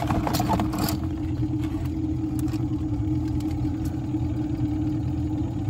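Boat engine idling with a steady low hum. A few light clicks in the first seconds come from metal tongs handling a blue crab in a plastic tub.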